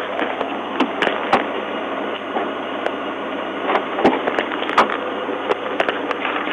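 Static on a police cruiser's dashcam audio feed: a steady hiss with irregular sharp crackling clicks.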